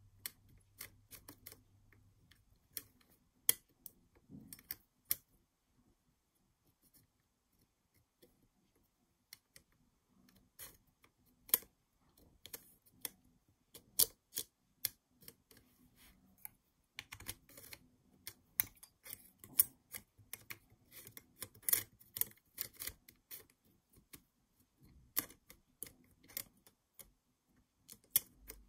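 Irregular clicks and light taps of a part being pressed and worked back onto the metal base of a Brother KH840 knitting machine carriage, its hooks catching as it is fitted. The fit is stiff. The clicks thin out for a few seconds near the start, then come thick and fast.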